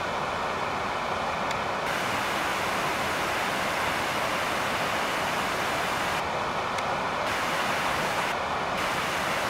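Steady rushing of water from the rapids of the stream beside the path, an even hiss-like roar that does not change.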